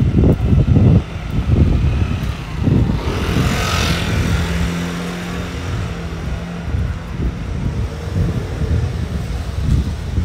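Street traffic. A vehicle passes about three seconds in, its hiss swelling and fading, followed by a steady engine hum for a few seconds, over continuous low rumbling.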